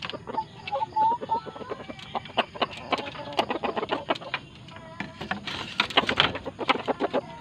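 Rooster clucking in short calls, mixed with many sharp clicks and taps, with a denser rustling patch about six seconds in.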